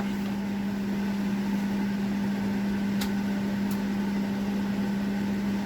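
Steady low hum with one constant tone, a machine-like background drone. Two faint clicks a little past halfway.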